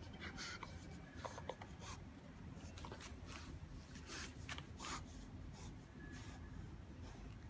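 A Rottweiler chewing and gnawing on an old washing-machine hose part: irregular soft clicks and scrapes of teeth on the rubbery plastic, over a faint low background rumble.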